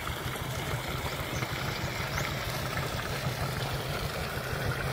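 Engine running steadily with a constant low drone while water is pumped through a hose to flood an armadillo burrow.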